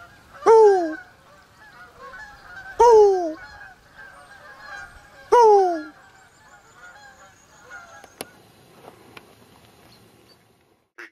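A flock of geese flying overhead and honking: three loud honks, each falling in pitch and about two and a half seconds apart, over softer calls from the rest of the flock that fade out after about eight seconds.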